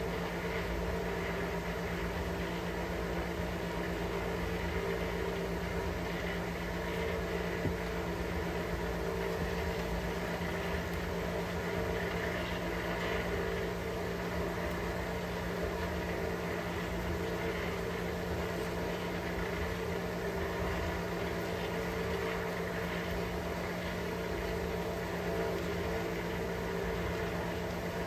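A steady machine hum with a constant pitch, unchanging throughout.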